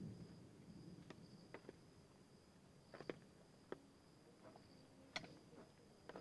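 Faint, steady high-pitched insect trill, with scattered soft clicks and taps.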